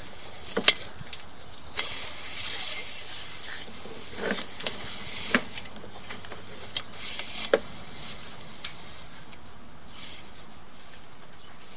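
Sewer inspection camera push cable being fed down a waste line: scattered, irregular clicks and knocks with short rustling hisses over a steady hum.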